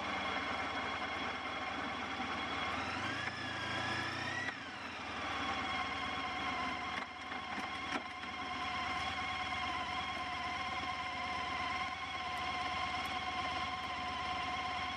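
Honda ST1300 Pan European motorcycle's V4 engine running as the bike rides along and pulls up. Its pitch climbs for a few seconds, drops about four and a half seconds in, then holds steady.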